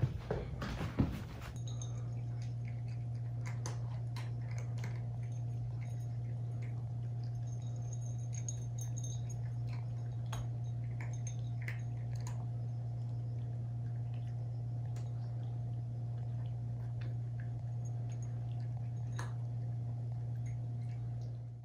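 Several cats eating from glass bowls: faint chewing and scattered small clinks of food against the bowls, over a steady low hum.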